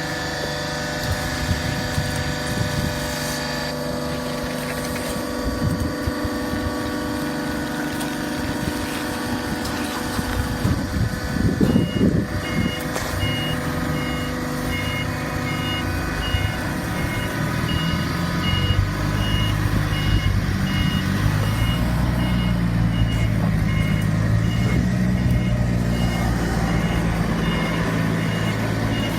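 Industrial horizontal cardboard baler running with a steady machine hum, with a short clatter about 11 seconds in. From about 12 seconds a warning beep starts repeating at an even pace, under two beeps a second, and a lower engine rumble joins a few seconds later.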